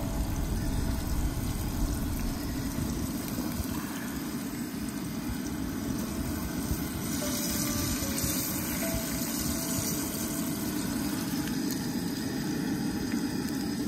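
Hot oil sizzling steadily in a frying pan on a propane camp stove as crappie fillets fry.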